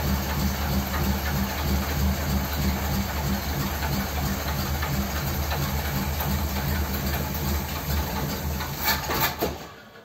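1957 Ford Thunderbird's 312 Y-block V8 idling steadily with a Holley four-barrel carburettor, then shutting off about nine and a half seconds in, with a couple of sharp clicks just before it dies away.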